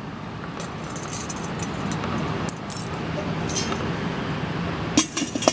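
Enamelled steel lid of a small charcoal kettle grill being handled and set on the bowl, with a couple of sharp metallic clanks about five seconds in, over a steady background noise.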